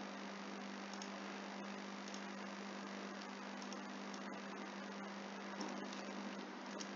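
Steady electrical hum with an even background hiss, the recording's noise floor, with a few faint clicks scattered through it.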